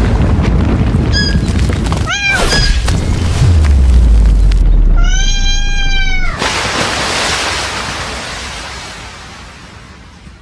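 Cat meowing: a couple of short calls about a second and two seconds in, then one long drawn-out meow about five seconds in. Under the calls runs a loud rushing noise with a low rumble, which fades away over the last few seconds.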